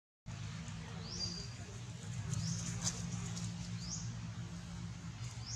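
A short, high, rising chirp repeated about every second and a half, over a steady low hum, with a sharp click about three seconds in.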